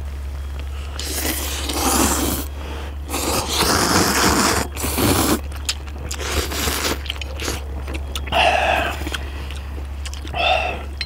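Ramyeon noodles being slurped loudly by several people in a few long, noisy draws, with chewing between them. Near the end there are two short pitched sounds, over a steady low hum.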